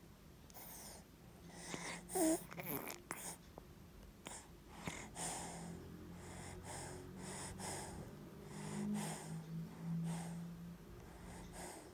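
A congested baby breathing in short, noisy breaths through a blocked nose and a phlegm-filled chest, with a brief whimper about two seconds in.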